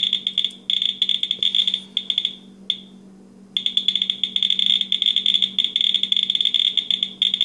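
WB Johnson GSM-500 Geiger counter with pancake probe clicking rapidly through its speaker, about 1,100 counts per minute, as it detects radiation from trace cesium-137 in a spark gap tube held against the probe. The clicks all but stop for about a second shortly before the middle, and a low hum runs underneath.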